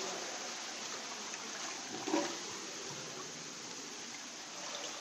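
Floodwater inside a house sloshing as someone wades through it, over a steady hiss of water; one louder slosh about two seconds in.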